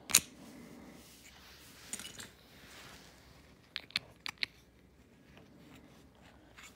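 Close handling noise: a sharp click at the start, soft rustling, then a quick run of four light clicks about halfway through.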